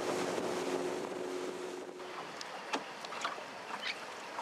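Motorboat engine running under a rush of wind and water, then easing off and fading out about halfway through, leaving a quieter wash of wind and water with a few short sharp ticks.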